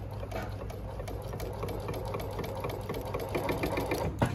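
Consew 1118-4 blind hem stitch machine sewing slowly on its servo motor: a quiet, steady hum with a light, even ticking from each stitch. A sharper click comes near the end.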